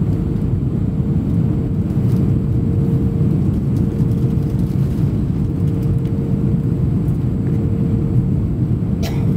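Airbus A320 cabin noise in flight: a steady low rumble of engines and airflow, with a constant hum just under 500 Hz. There is a brief sharp click near the end.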